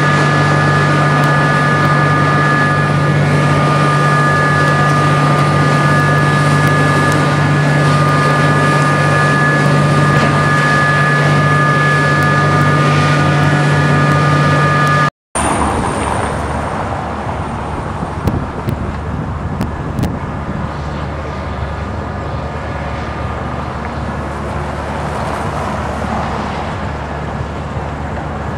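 A steady engine drone with a constant whine over it for about fifteen seconds, then, after an abrupt cut, outdoor traffic noise with a few scattered knocks.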